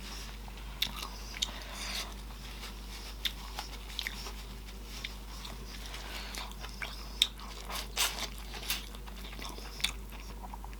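Close-miked eating: chewing with wet lip smacks and sharp mouth clicks coming irregularly, from a sausage boil in butter sauce.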